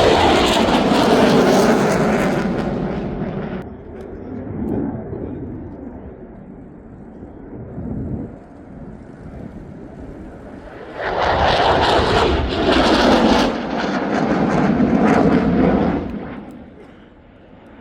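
Jet aircraft noise: a loud pass whose pitch falls as it goes by, cut off suddenly a few seconds in. Quieter engine noise follows, then a second loud jet pass later on that ends abruptly near the end.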